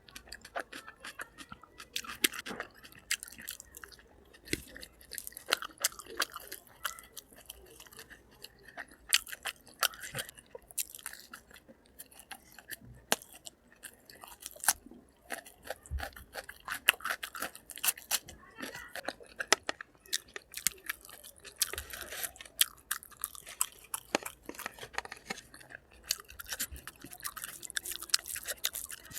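A person chewing food close to the microphone, with many short, sharp wet mouth clicks and occasional crunchy bites.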